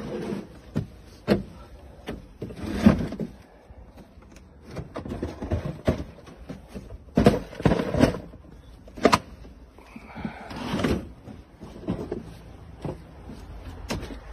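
Irregular knocks and clatter of someone stepping up into a van's load area through its open side door and moving about among the tool cases, with footsteps on the metal floor and door frame.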